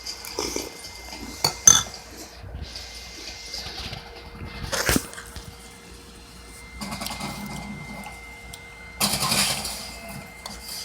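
Someone chewing a spoonful of Pop-Tarts cereal in milk, with a few sharp clicks and knocks and two stretches of crunching about seven and nine seconds in.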